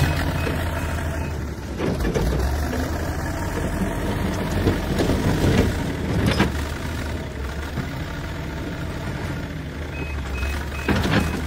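Backhoe loader's diesel engine running under load as the machine drives forward into a pile of stone and lifts its front bucket, with several sharp knocks and clanks of rubble in the steel bucket.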